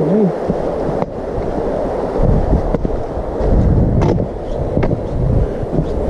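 Wind buffeting the camera microphone: a low rumble that grows heavier about two seconds in, with a few sharp clicks.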